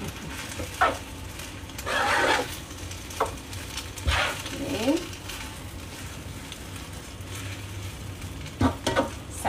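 Rice vermicelli being stir-fried in a wok: a metal spatula scrapes and tosses the noodles every second or two over a faint sizzle.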